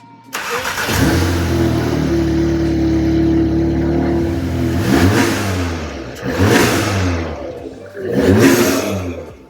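Audi S3's turbocharged 2.0-litre four-cylinder, breathing through a 3-inch Scorpion downpipe and APR intake, is held at raised revs for a few seconds. It is then blipped three times, the revs rising and falling each time.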